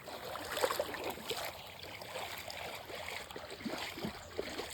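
Footsteps wading through a shallow stream, water sloshing and splashing unevenly.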